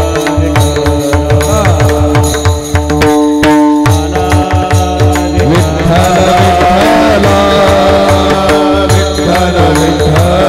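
Varkari kirtan tune (chal) being performed: held tones over a steady, driving drum beat, with a voice singing the melody from about halfway through.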